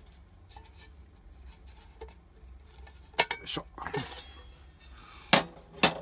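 Metal stove parts clinking and knocking as they are handled: a few sharp clinks about three to four seconds in, then two louder knocks near the end.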